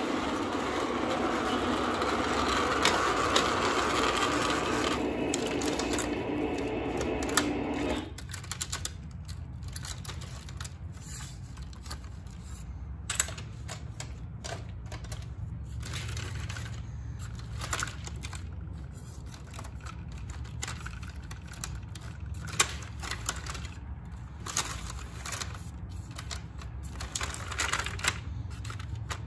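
Lionel O gauge model trains running on metal track: a steady running noise that drops off sharply about eight seconds in, leaving a low hum with irregular clicking of wheels over rail joints as cars pass.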